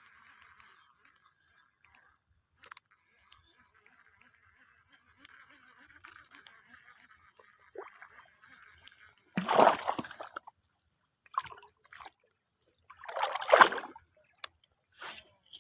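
Water splashing: two loud splashes about three and a half seconds apart, with smaller splashes after each and a faint steady hiss before them.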